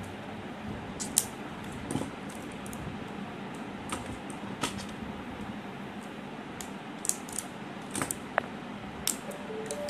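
Scattered small clicks and taps from batteries and a plastic utility knife being handled as the batteries are freed from their packaging, over a steady faint background hiss.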